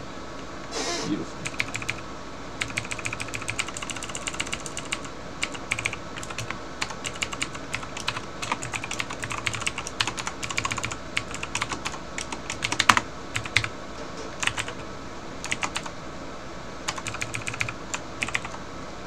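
Typing on a computer keyboard: irregular runs of key clicks with short pauses, and one sharper, louder keystroke about thirteen seconds in.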